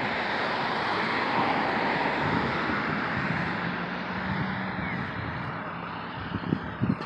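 A passing vehicle: a steady rushing noise with a faint engine hum that swells and then slowly fades, with a few low thumps near the end.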